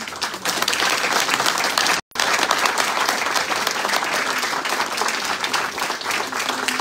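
Audience applauding: a roomful of people clapping, starting all at once and going on steadily. The sound cuts out completely for a split second about two seconds in.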